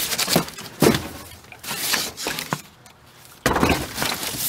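Cardboard boxes and packaging being shifted and rummaged through by hand, with crinkling rustles and a few sharp knocks. There is a brief lull just before three seconds, then louder rustling.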